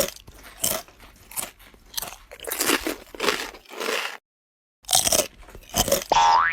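Crunching in short, irregular bites, like chewing on something crisp, with a brief break past the middle. Near the end a rising whistle-like glide.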